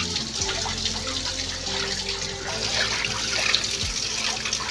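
Kitchen tap running into a sink, water splashing steadily, with small clicks and knocks from things being rinsed or handled under it.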